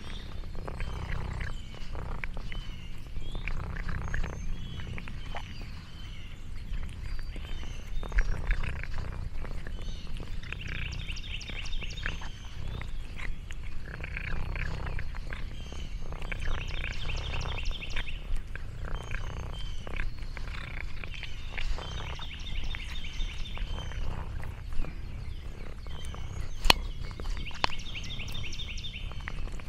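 Orange tabby cat purring close to the microphone, a continuous low rumble with scattered small clicks. A high, rapid trill recurs four times in the background, roughly every five or six seconds.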